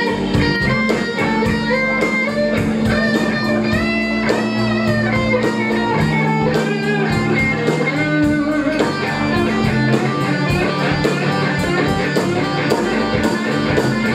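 Live rock band playing: electric guitar lines over bass and a drum kit keeping a steady beat.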